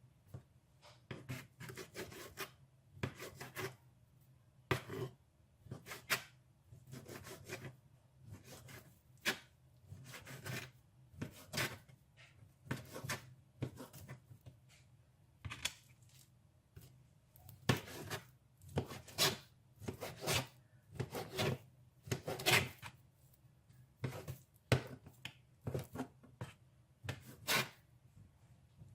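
Kitchen knife cutting up chicken breast on a cutting board: irregular slicing strokes, roughly one a second, with the blade scraping across the board.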